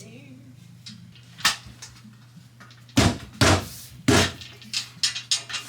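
A run of sharp knocks and bangs: one about a second and a half in, then a quicker cluster of six or so toward the end, over a low steady hum.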